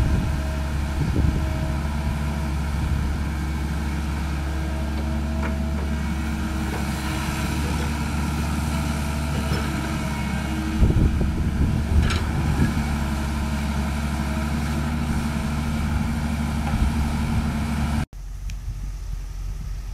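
Caterpillar crawler excavator's diesel engine running steadily under hydraulic load while loading a dump truck, with a few knocks about eleven to twelve seconds in as the load is handled over the truck bed. Near the end the sound cuts to a quieter engine.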